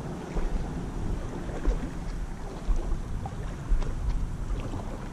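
Wind buffeting the camera microphone in gusty low rumbles, over a faint steady wash of stream water, with a few small ticks.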